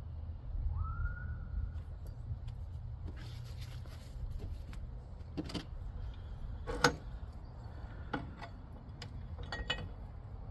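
Scattered clicks, clinks and knocks as parts and packing are taken out of the chop saw's box, over a steady low rumble. A brief tone rises and then holds for about a second near the start.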